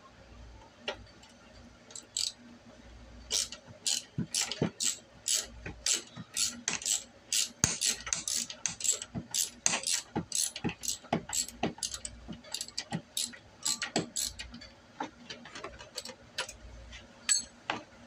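Hand socket ratchet clicking in rapid runs of strokes as it backs out the last mounting bolt of a GY6 50cc scooter's ignition switch.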